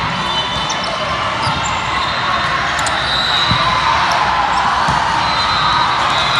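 Busy gym sound during an indoor volleyball rally: a steady hubbub of spectators and players in a large echoing hall, with short sneaker squeaks on the court and a couple of dull thuds of the ball being played, about three and a half and five seconds in.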